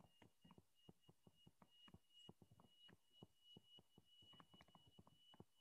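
Faint, irregular taps and scratches of a stylus writing on a tablet screen, over a faint steady high tone.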